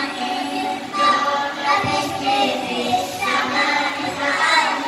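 A group of young children singing together in chorus over backing music.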